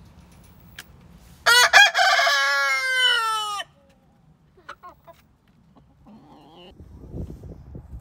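A rooster crows once, a cock-a-doodle-doo about two seconds long that opens with a few short notes and ends in a long falling note. A few faint clucks follow.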